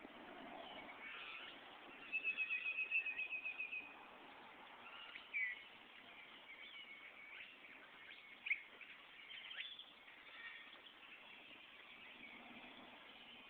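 Small birds singing: a rapid trill of about two seconds begins about two seconds in, followed later by a few short single chirps, over a faint outdoor background.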